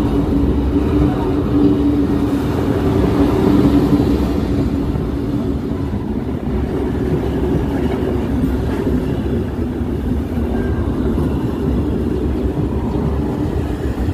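Abu Qir line commuter train's passenger coaches rolling past at close range: a steady rumble of wheels on rail with a low hum, loudest a few seconds in.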